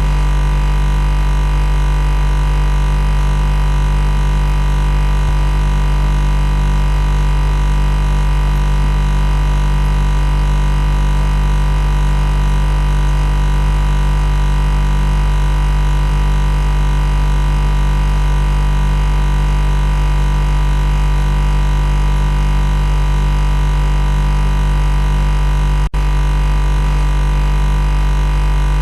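Loud, steady machine buzz: a constant low hum with a stack of unchanging overtones. It has no rhythm or change in pitch, apart from a momentary dropout about 26 seconds in.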